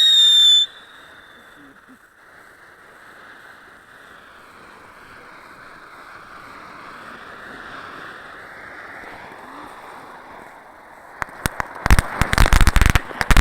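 Vipère firework fountain going off: a loud high whistle cuts off about half a second in, then a steady hiss that slowly builds for about ten seconds, and near the end a dense crackling of many sharp pops.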